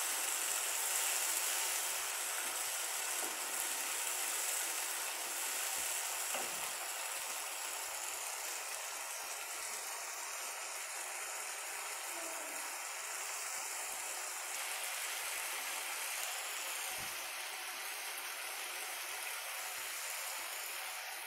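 Onion and tomato puree masala sizzling in hot oil in a kadhai: a steady frying hiss with a few faint pops. The tomatoes are frying down.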